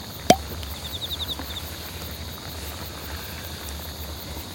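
A single sharp click as the cap of a glass liquor bottle is twisted open, about a third of a second in. Around it runs a steady background chorus of night insects, with a short run of quick chirps just after the click.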